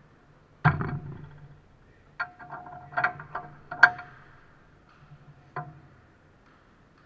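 A series of sharp knocks and clunks, about six in all, some with a short ringing; the loudest comes with a dull thump about half a second in, and a second strong knock falls near four seconds.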